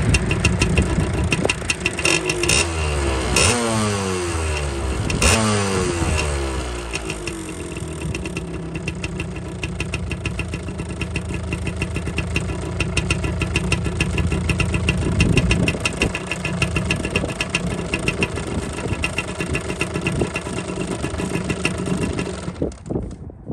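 1986 Yamaha Tri-Z's 250 cc two-stroke single-cylinder engine running. It is revved up and down several times a few seconds in, then settles to a steady idle. It cuts out near the end.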